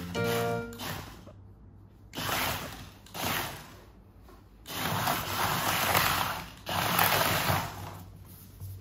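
Pet otter scrambling into and through a clear plastic play tube: a series of rattling, scraping bursts of claws and body on the plastic, the longest lasting about two seconds.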